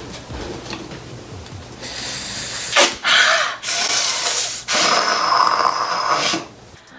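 A woman hisses and strains through clenched teeth in pain from waxing her leg, in four long noisy pushes of breath with short breaks between them, starting about two seconds in.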